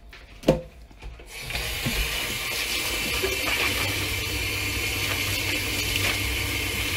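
Kitchen tap turned on about a second in, then water running steadily into a stainless steel sink as a sponge is rinsed under the stream. A single short knock comes just before the water starts.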